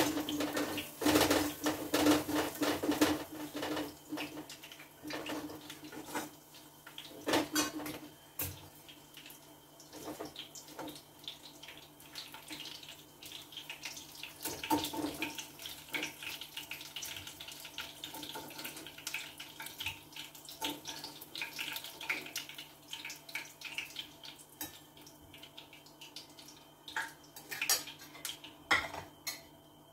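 Hot oil sizzling in a frying pan on a gas stove, with scattered clinks and scrapes of a metal spoon against the pan as the pieces are turned.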